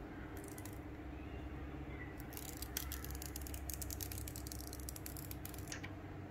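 Thin clear plastic protective film crinkling and crackling as it is peeled off the back of a new smartphone, a dense run of crackles lasting about three seconds from roughly two seconds in, over a steady low hum.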